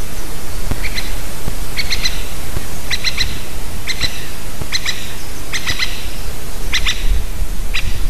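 A woodpecker calling: about eight sharp, short calls roughly once a second, each a quick double or triple note, over a steady hiss.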